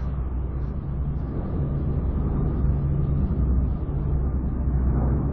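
Heavy aircraft in flight: a low, steady engine drone with rushing air.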